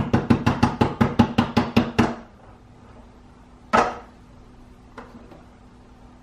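Hand rapidly slapping the base of an upturned cake tin, about seven knocks a second for two seconds, to loosen the baked sponge so it drops out; one harder single knock follows about four seconds in.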